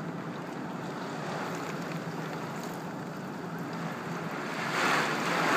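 Thunderstorm rain and wind: a steady rushing noise that swells into a louder gust about five seconds in.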